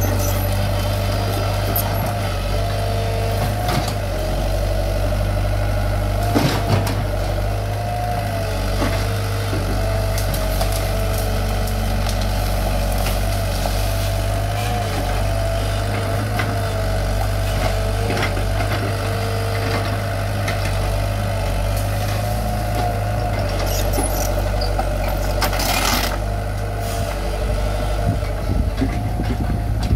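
Komatsu PC75 mini excavator's diesel engine running steadily under working load, with a wavering hydraulic whine as the arm and bucket move. A few sharp cracks come through as brush is broken, the loudest about six seconds in and again near the end.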